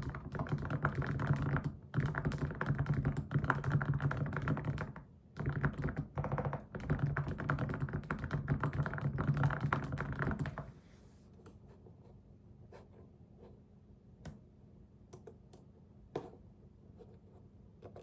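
Fast typing on a computer keyboard in quick runs with short breaks. It stops about eleven seconds in, leaving only a few faint, scattered taps.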